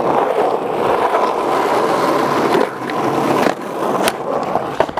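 Skateboard wheels rolling over rough asphalt in a steady, gritty rumble, with a few sharp clacks of the board near the end.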